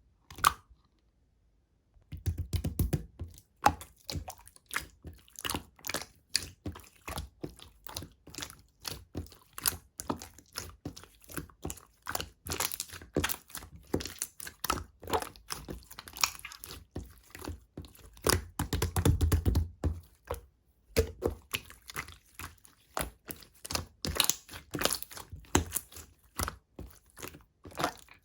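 Clear slime being squeezed and poked by hand, giving a dense, irregular run of wet clicks and pops with a few heavier squelching thuds.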